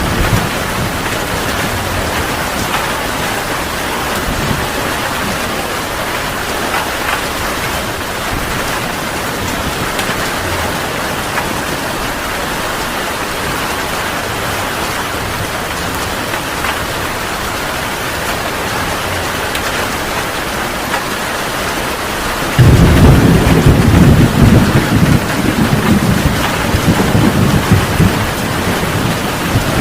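Heavy rain falling steadily in a thunderstorm. About three quarters of the way in, a sudden loud thunderclap breaks in and rolls on as low rumbling thunder.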